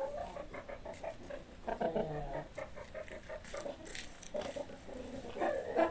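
Animal calls: short, repeated pitched cries with scattered clicks.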